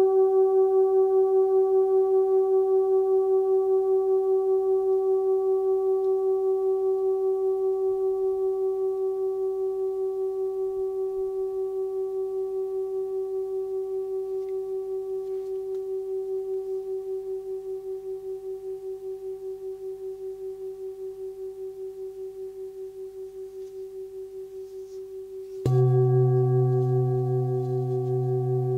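Hand-forged 25 cm singing bowl tuned to C (130 Hz), ringing and slowly dying away with an even pulsing beat. Near the end it is struck again and rings out louder, with a strong low hum under the higher tones.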